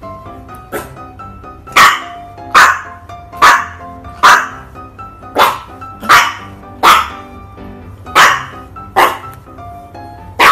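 A puppy barking in short, sharp barks, about ten in a row at roughly one a second.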